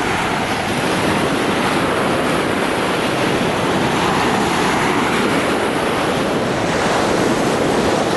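Small sea waves breaking and washing onto the beach in a steady surf noise, with wind on the microphone.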